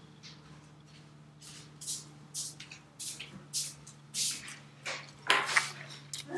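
Irregular short rustling and brushing noises, about two a second and louder toward the end, from hands and a shirt rubbing against a clip-on microphone while signing. A steady low electrical hum runs underneath.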